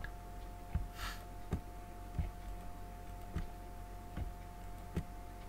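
Computer mouse clicking, about six single clicks roughly a second apart while selecting faces of a model, over a steady faint electrical hum.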